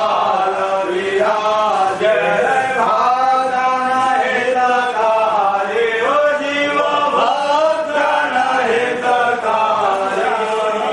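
Voices chanting Hindu mantras in a continuous, melodic recitation, the pitch rising and falling with hardly a pause.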